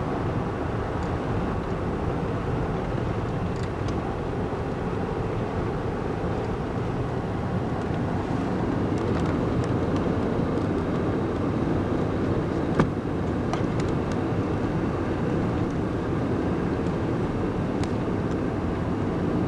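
Steady road and engine noise inside a moving car's cabin, with one sharp click about two-thirds of the way through.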